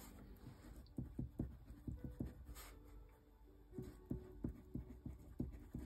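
Red pencil writing on a sheet of paper: a faint run of short, irregular scratching strokes.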